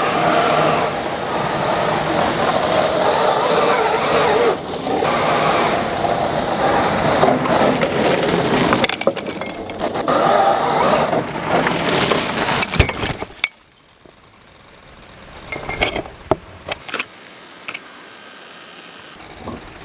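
A 1:5 scale RC rally car with a brushless motor and all-steel gears, running and sliding on hard, dry dirt. The loud noise cuts off suddenly about two-thirds of the way through, leaving quiet with a few faint knocks.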